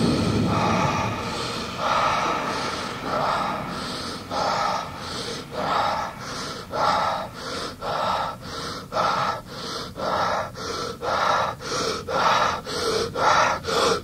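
Recorded gasping breaths from a 1988 Halloween sound-effects cassette. The breaths come in a steady rhythm that speeds up until they are less than half a second apart, then cut off suddenly. A low rumble fades out in the first moments.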